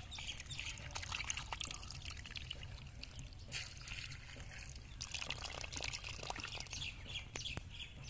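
Muddy water trickling and bubbling in a small pit as eels move through it, with a fast crackle of small bubbles popping at the foamy surface.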